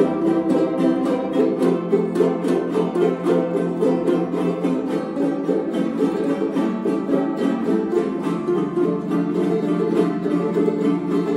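Several jaranas strummed together in a fast, even son jarocho strumming pattern, chords ringing without pause.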